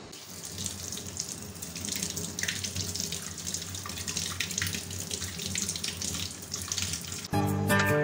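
Water running from a tap over a pomelo as it is rubbed by hand to wash it, with uneven splashing. Near the end, background music with plucked guitar starts suddenly and is louder than the water.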